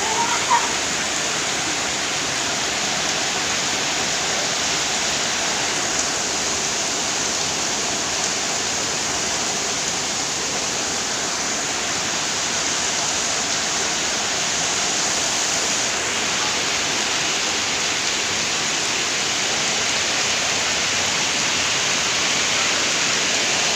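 Heavy tropical rain pouring down in a steady downpour.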